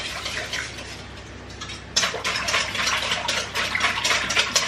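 Batter being stirred in a stainless steel mixing bowl: a utensil scraping and clicking against the metal in quick repeated strokes, louder from about two seconds in.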